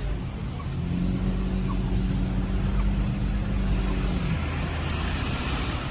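Low rumble of car and traffic noise heard from inside a car's cabin. A steady low drone starts about a second in, holds one pitch, and stops a little past the middle.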